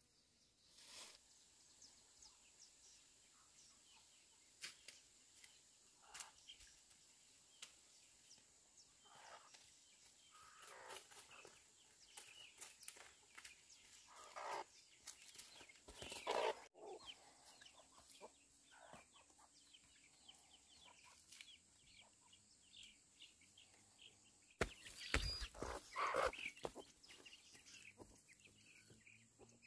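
Chickens clucking now and then, in short calls that come in a few clusters, over a steady high insect drone and scattered light clicks.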